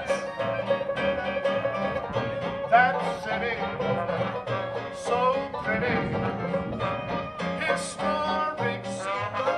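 Live banjo band music: a banjo playing with keyboard accompaniment and a man singing.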